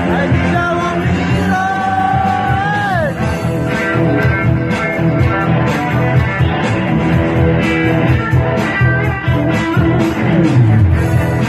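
Rock band jamming live: guitar over bass and drums, with a held high note that slides down about three seconds in.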